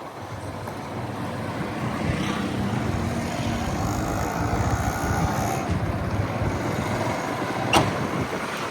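Steady motor-vehicle engine and road noise on the move, with a sharp click near the end.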